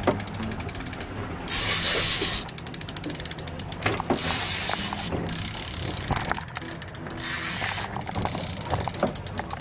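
The ratchet clicker of a big-game fishing reel clicking rapidly in long runs as the spool turns with a fish on the line. A short loud rush of noise comes about two seconds in.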